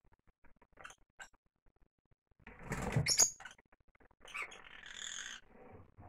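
Peach-faced lovebirds: a loud burst of flapping wings and high chirps about halfway through, then a shorter spell of high chirping and rustling near the end.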